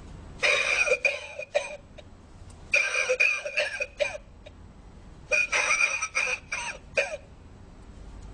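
A novelty lung-shaped ashtray's built-in speaker playing recorded coughing in three separate fits, each about a second and a half long, with pauses between them.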